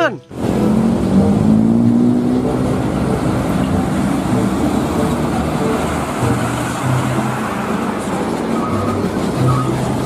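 Road traffic with heavy trucks and motorcycles running past. One engine rises in pitch as it accelerates over the first couple of seconds, over a steady rumble of tyres and engines.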